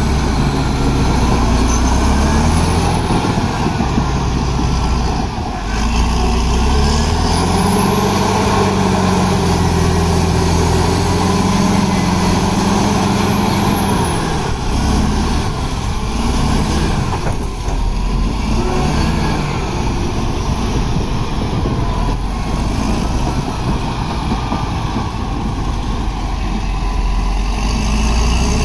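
Caterpillar D7 crawler bulldozer's diesel engine working under load as the machine pushes wet soil with its blade. Its revs rise about seven seconds in and drop back about halfway through.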